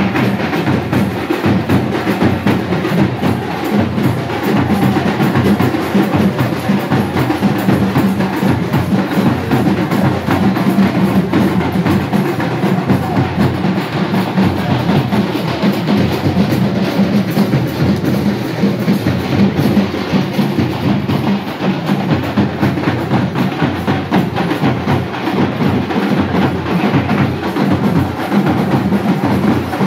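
Loud, fast, continuous drumming with music, the dense strokes running without a break: temple festival drumming.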